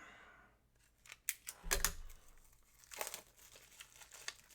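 Plastic crinkling and a few light clicks and taps as a trading card is worked into a plastic card holder, a larger Pro-Mold one-touch style case.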